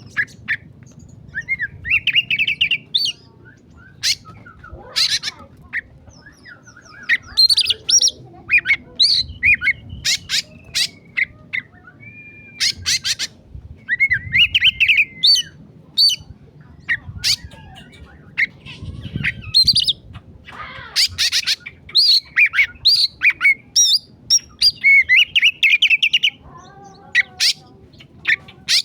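Oriental magpie-robin (kacer) singing in an agitated, fired-up state: short bursts of rapid, varied whistled and chattering phrases broken by sharp ticking notes, over and over.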